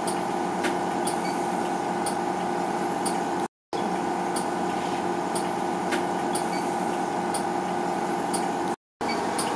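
Steady mechanical hum of the running equipment in an air-quality monitoring station, with rack-mounted gas analyzers and an air conditioner: several steady tones over an even whir, with faint high ticks every second or so. The sound cuts out completely for a moment twice, about three and a half seconds in and near the end.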